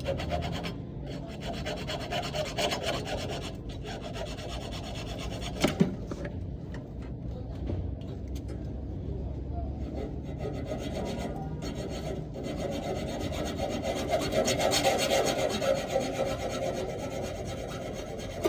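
Refrigerator compressor's discharge and suction pipes being cut through, a continuous rasping rub of the cutting tool on the pipe metal, with a sharp click about six seconds in and a louder stretch near the end.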